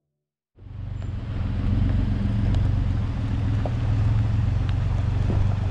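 Mitsubishi Montero 4x4 driving slowly over a rocky trail: a steady low engine rumble that starts abruptly about half a second in, with a few faint clicks of stones under the tyres.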